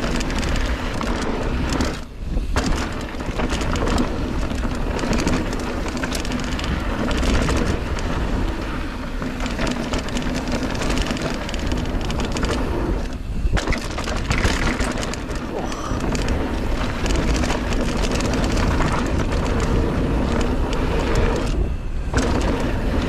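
Mountain bike riding over a dry dirt trail: steady wind buffeting on a rider-mounted camera's microphone, mixed with tyre and bike rattle over the rough ground. There are three brief lulls, about two, thirteen and twenty-two seconds in.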